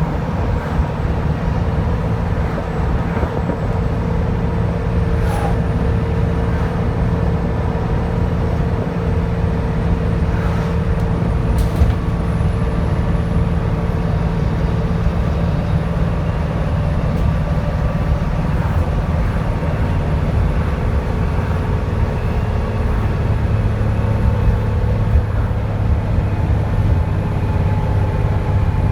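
Dennis Trident 2 double-decker bus's diesel engine running steadily, with a thin, high turbocharger whistle that rises a little about five seconds in and then holds. Two brief clicks come at about five and twelve seconds.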